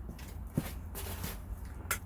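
A few light knocks and clicks with a short rustle: parts and hands moving about during hand assembly, over a steady low hum. The sharpest click comes near the end.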